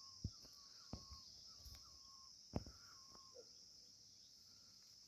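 Faint rural background: a steady high insect drone, with a bird repeating a short call about twice a second that fades out about halfway through. Three sharp knocks, the loudest about two and a half seconds in.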